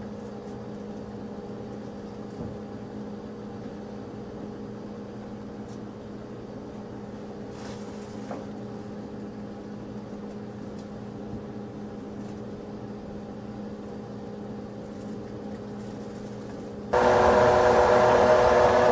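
Steady low mechanical hum made of several constant tones, with a few faint clicks. About seventeen seconds in it turns suddenly louder and fuller.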